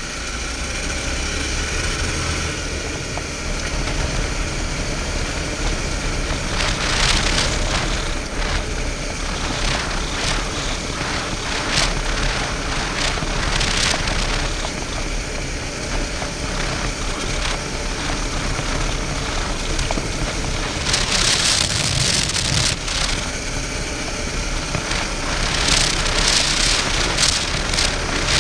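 Suzuki V-Strom 650's V-twin engine running as the motorcycle is ridden, under a steady wash of wind and tyre noise on the helmet or bike camera's microphone. The hiss swells louder several times, around seven seconds in, between about 21 and 23 seconds, and again near the end.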